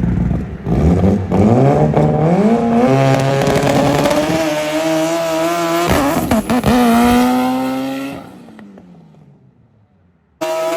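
A car accelerating hard, its engine revving up through the gears in rising steps, then fading away as it drives off. Shortly before the end a different engine running steadily cuts in suddenly.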